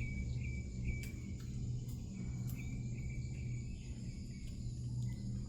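Crickets chirping at a steady high pitch over a low steady hum, with a few faint clicks.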